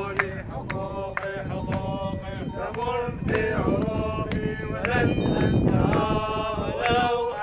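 A group of men chanting a protest slogan together in a repeated rhythmic call.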